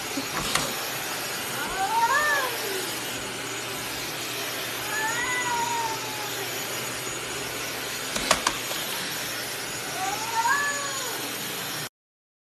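A domestic cat meowing three times in long, drawn-out yowls, each call rising and then falling in pitch, over a steady hiss with a few sharp knocks.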